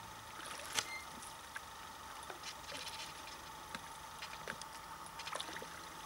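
Oars of a small inflatable boat rowing through calm water: faint splashes and drips with scattered light knocks, the sharpest a little under a second in.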